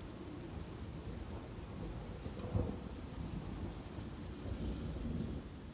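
Steady rain falling with low rolls of thunder, a louder rumble about two and a half seconds in.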